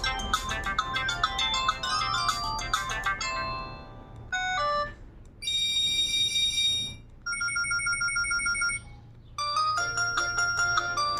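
Doro HandleEasy 330GSM mobile phone playing its ringtones in turn. A melody fades out, then come a few short notes, a long buzzing tone, a rapidly pulsing beep, and about two-thirds of the way in another melody begins.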